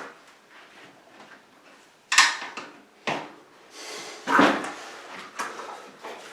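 A stubborn bicycle tyre being worked off the rim by hand and lever: rubber scraping and rubbing against the rim in several sudden strokes, starting about two seconds in.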